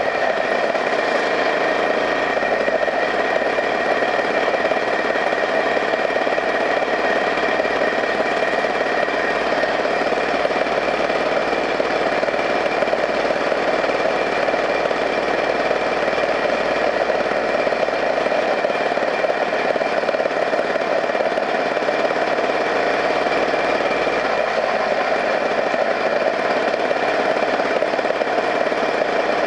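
Engine of the small motor vehicle carrying the camera, running steadily at an even cruising speed. Road and wind noise mix in, and the sound hardly changes throughout.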